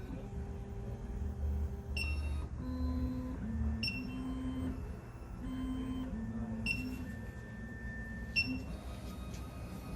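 SEC-E9 computerized key cutting machine running a calibration step: its motors whine at pitches that shift as the carriage moves, with four short electronic beeps.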